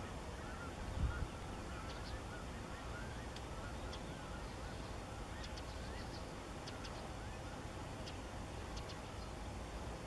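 A flock of gulls calling in flight: many short, harsh, arched calls overlapping, with scattered high ticks and a brief low thump about a second in.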